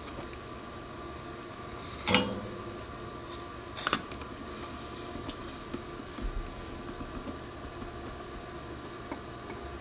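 Two sharp metallic clinks of small hard parts being knocked or set down. The first, about two seconds in, rings briefly. The second comes near four seconds, followed by a few light clicks over a steady electrical hum.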